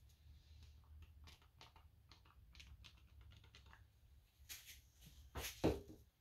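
Scattered faint clicks and light taps of small objects being handled at a work table, with a few louder knocks near the end, the loudest just before it ends.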